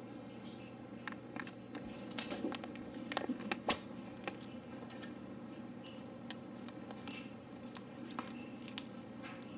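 Scattered small clicks and taps of a metal spoon and plastic fruit cup handled over a plastic cutting board, with one sharper click a little under four seconds in, over a low steady room hum.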